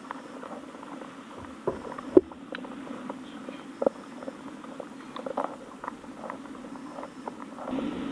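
Muffled underwater sound picked up by a GoPro in its waterproof housing: a low steady hum with scattered faint clicks and taps.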